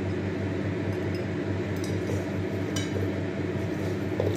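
Hands working boiled sweet potato pieces in a steel bowl, with a few light clinks of a ring and bangles against the metal, over a steady low hum.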